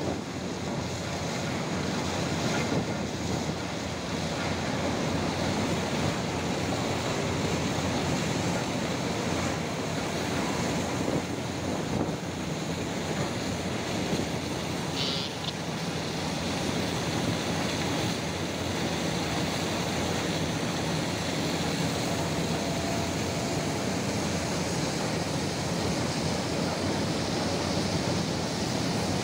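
Steady rushing of bulk coal pouring from a floating crane's loading chute into a ship's cargo hold.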